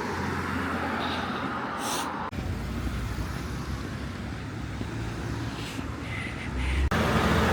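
Steady low rumble of a road vehicle on the move, cut abruptly twice into separate short clips.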